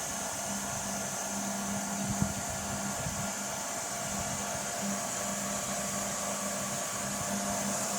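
Reverse-osmosis water purification machine running under pressure: a steady hum with a hiss of pump and flowing water, with one brief knock about two seconds in.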